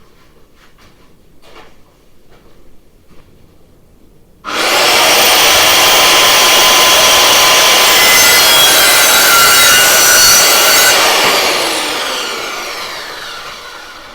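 Electric power saw cutting timber. It starts suddenly about four and a half seconds in and runs loud and steady through the cut. Then it winds down with a falling whine as the blade coasts to a stop. Light knocks of handling come before it starts.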